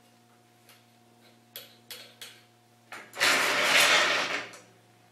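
Vise on the carriage of a 30-inch Covington rock saw being worked open by hand: a few light metal clicks, then a loud sliding metal scrape lasting about a second and a half, starting about three seconds in. A faint steady hum runs underneath.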